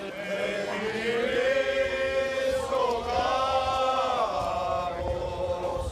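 A group of men singing together in a slow traditional Cretan song, a rizitiko, drawing out long held notes that slide from one pitch to the next.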